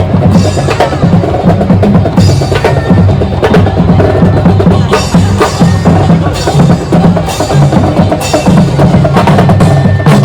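Background music with a steady percussive beat, knocking wood-block-like hits over a bass line.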